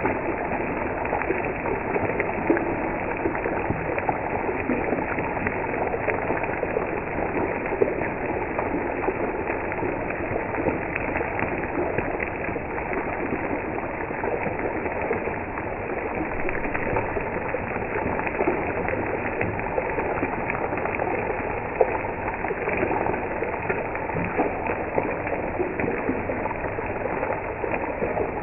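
Oil sizzling steadily around fish steaks shallow-frying in a pan, with a dense patter of small crackles and the odd sharper pop.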